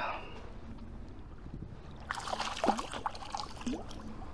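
Water splashing and sloshing at the side of a kayak, starting about two seconds in and lasting about two seconds.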